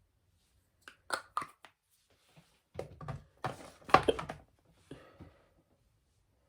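Small objects being handled: a few sharp clicks about a second in, then a cluster of knocks and rustling, loudest just past the middle, and two last clicks near the end.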